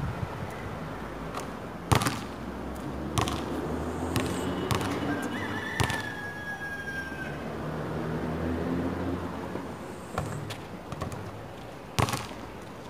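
A basketball knocking sharply against the hoop and court a few times, spread over several seconds, over a steady low hum.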